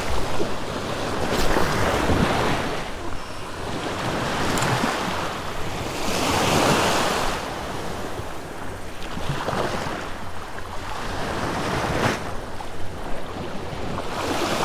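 Small surf waves breaking and washing in the shallows, swelling and fading every few seconds, with wind rumbling on the microphone.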